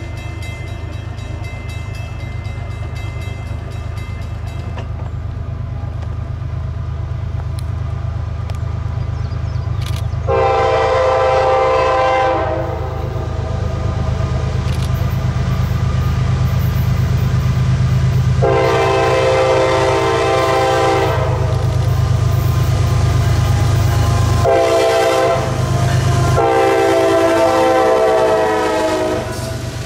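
CSX GE ES44AH diesel locomotive blowing its Nathan K5HL five-chime air horn in the grade-crossing pattern: long, long, short, long, with the first blast about ten seconds in and the last ending near the close. Under the horn, the locomotive's diesel engine rumbles steadily, growing louder as it draws near and passes.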